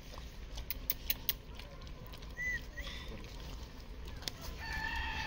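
Dog licking ghee from a small metal bowl: a few irregular soft clicks of its tongue and mouth against the bowl in the first second or so, over a faint low background rumble.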